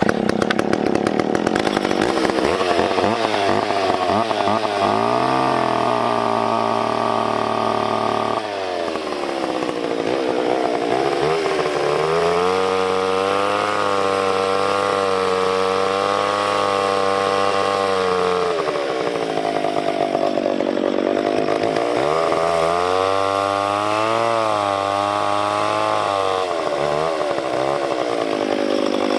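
Chainsaw cutting through maple stump roots, revving up high in three long cuts with the pitch wavering under load, and dropping back to lower revs between cuts.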